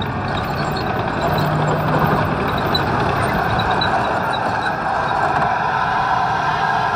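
M1A1 Abrams tank's gas turbine engine running loud under power as the tank turns on the spot in sand, getting a little louder about a second in.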